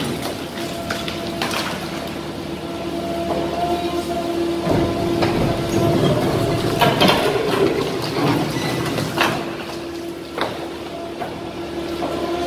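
Demarec hydraulic demolition shear on an excavator crushing a reinforced-concrete slab: the machine runs with a steady whine. Several sharp cracks and crumbling falls of breaking concrete, the loudest about seven seconds in.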